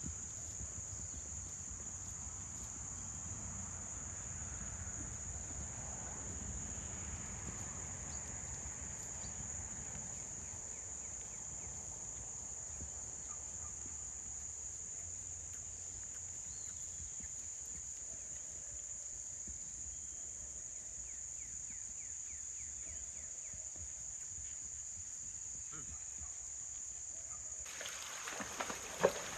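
Steady high-pitched drone of an insect chorus over a low rumble. Near the end comes the splashing of a horse's hooves wading through a shallow creek.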